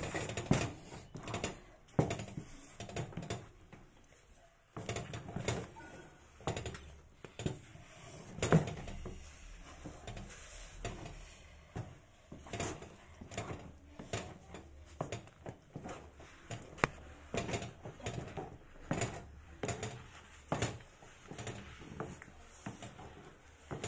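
Wooden stirring stick (dabilo) knocking and scraping against the sides of a metal pot as thick finger-millet dhindo is stirred, with irregular knocks about once or twice a second.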